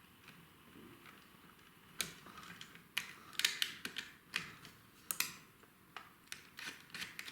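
Irregular small sharp clicks and light scrapes of a screwdriver and copper cable cores being worked into the terminals of an electrical double socket, starting about two seconds in.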